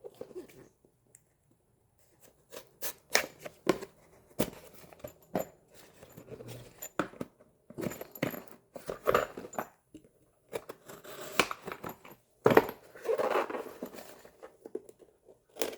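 Packaging of a new Shimano hub axle kit being opened by hand: an irregular run of rustling, tearing and sharp snips and clicks, with a louder stretch near the end.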